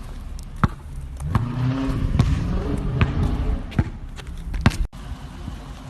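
A series of about six sharp knocks at a steady pace, a little under a second apart, over a low vehicle rumble, breaking off abruptly near the end.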